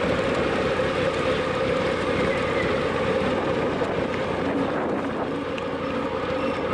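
Motorcycle riding at low speed: its engine running steadily under wind rushing over the camera microphone, easing a little as the bike slows.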